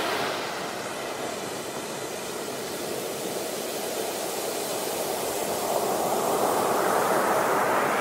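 Ocean waves breaking on a beach: a steady rushing wash of surf that eases a little about a second in and builds again over the last few seconds.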